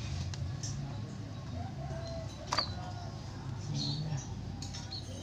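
Faint short bird chirps over a low steady background, with one sharp click about two and a half seconds in.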